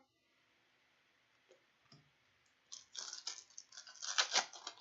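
Trading cards being handled and flipped through by hand: a quick run of light clicks and papery rustles starting about three seconds in, after near silence.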